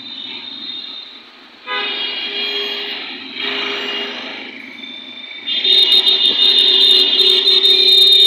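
Street traffic with vehicle horns honking: short honks about two and three and a half seconds in, then a long, loud honk held from about five and a half seconds in.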